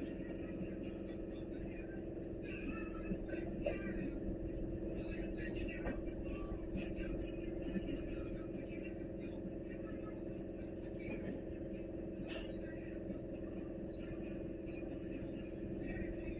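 A steady low hum of a few fixed tones, with faint scattered ticks and rustles of something being handled.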